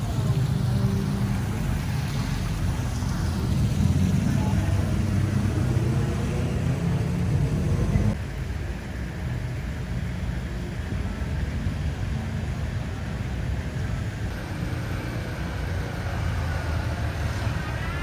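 Busy street traffic: motor scooters and cars running and passing, with indistinct voices. The traffic noise drops a little about eight seconds in.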